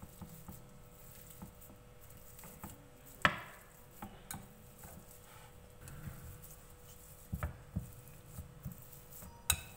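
Metal potato masher working boiled potatoes in a glass bowl: irregular soft thuds with a few sharp clicks, the loudest about a third of the way in.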